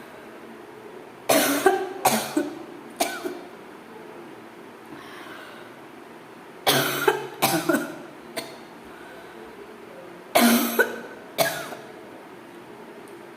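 A person coughing deliberately in three short bouts of three or four sharp coughs each, a few seconds apart.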